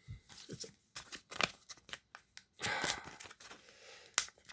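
Yu-Gi-Oh! trading cards and a booster-pack wrapper being handled: scattered light clicks and ticks, a brief crinkling rustle a little past halfway, and a sharp click near the end.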